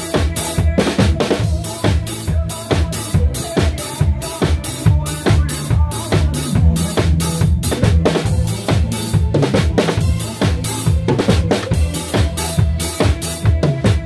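Acoustic drum kit played live in a steady beat, snare and bass drum hits with cymbals, over the recorded backing track of a trot song with a steady bass line.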